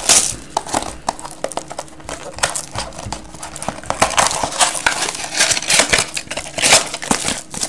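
Hands opening a sealed trading-card box and lifting out a cardboard mini box: plastic wrap crinkling, with cardboard rustling and small taps and clicks that grow busier and louder about halfway through.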